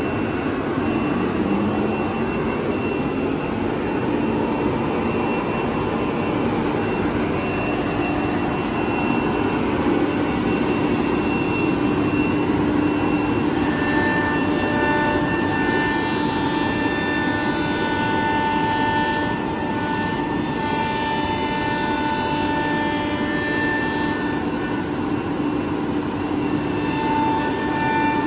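ATC CNC router running: a steady machine noise with several held whining tones. About halfway through, more tones join in, and short high chirps come in pairs three times.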